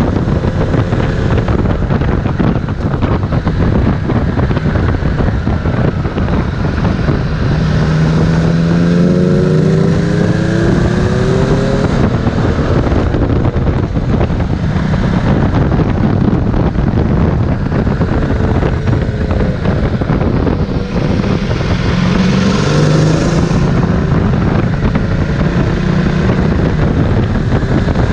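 Ducati Multistrada 1260 S's Testastretta V-twin engine running under way, under heavy wind noise on the microphone. The engine note rises and falls about eight seconds in and again a little past twenty seconds.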